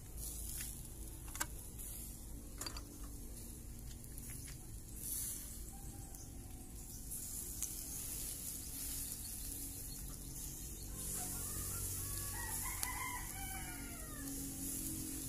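A rooster crowing once near the end, over a steady high hiss, with two sharp clicks in the first three seconds.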